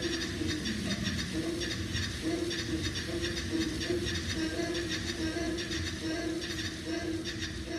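Live sampler music: a dense, steady wash of noise over a low, pulsing drone.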